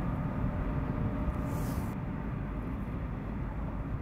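Steady low rumble of a passing inland cargo ship's engine, with a brief high hiss about a second and a half in.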